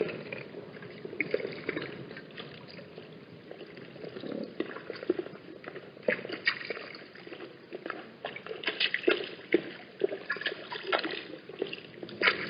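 Water splashing, dripping and sloshing in irregular spurts at a watering hole.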